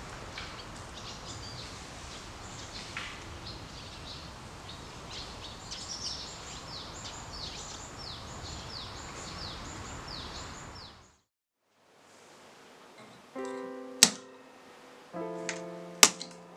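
Woodland ambience with birds singing, a quick run of short falling whistled notes, which stops suddenly about eleven seconds in. After a short pause, calm acoustic background music begins, with a few sharp cracks as pliers snap pieces off a block of Japanese zelkova wood.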